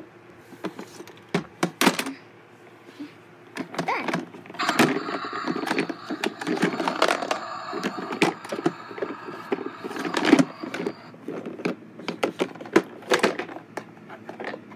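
Plastic toy garbage truck being handled: repeated clicks, knocks and clatter of its plastic parts. From about four and a half to eleven seconds a steady sound with several held tones runs under the knocks.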